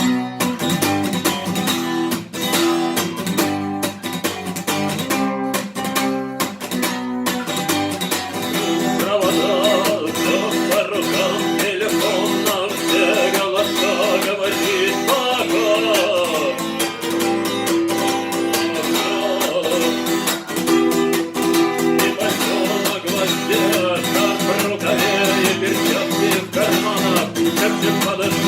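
Acoustic guitar strummed in a steady rhythm of chords. About eight seconds in, a higher wavering melody line joins over the strumming and carries on to the end.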